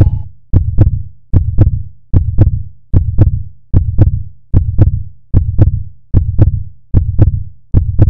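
Heartbeat sound effect: a loud, steady lub-dub of paired deep thumps, about 75 beats a minute.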